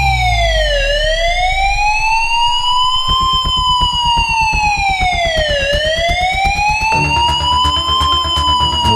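Wailing warning siren whose pitch rises and falls slowly, about once every five seconds, sounding as a drill alarm. A low, regular beat joins underneath about three seconds in.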